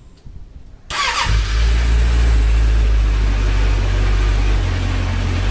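Suzuki Bandit 650 inline-four motorcycle engine being started: a short falling whine as it cranks about a second in, then it catches and settles into a steady, loud idle.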